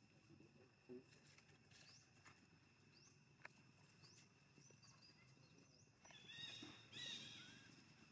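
Baby monkey calling: several faint, short rising chirps, then a louder, wavering, high-pitched cry about six seconds in that lasts a second or so.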